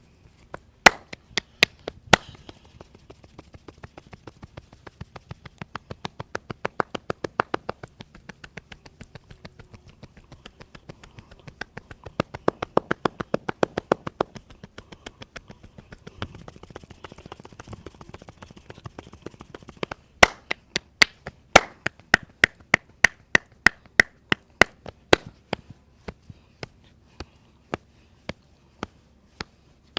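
Percussive massage strokes: hands rapidly slapping and tapping on the body in a steady rhythm, about three or four strikes a second. They come in runs that swell and fade, loudest and sharpest from about two-thirds of the way through.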